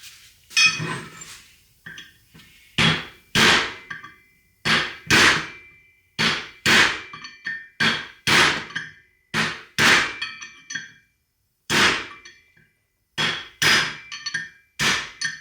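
Hammer blows driving a bearing race out of a Toyota IFS front hub, struck in an uneven series of roughly one blow a second, some in quick pairs, each with a short metallic ring.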